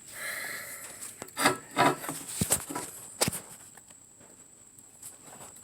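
Scraping and rubbing with several sharp knocks in the first three seconds or so, then quieter, over a faint steady high whine.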